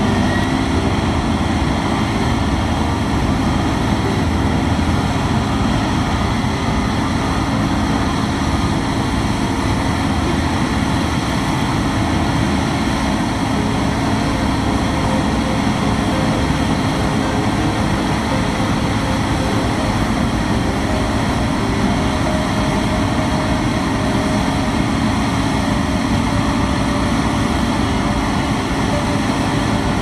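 Case IH combine's diesel engine running steadily at working speed while its unloading auger empties wheat into a grain truck: a constant, unbroken mechanical drone.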